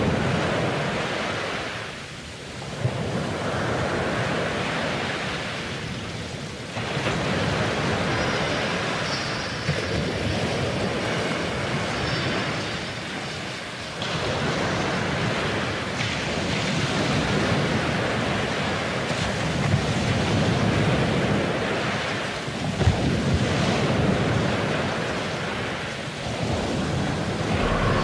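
Ocean surf: waves washing in and drawing back, the rush of water swelling and ebbing every several seconds.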